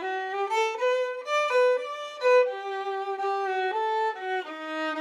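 Violin music: a single melody line of quick stepping notes that settles into longer held notes about halfway through.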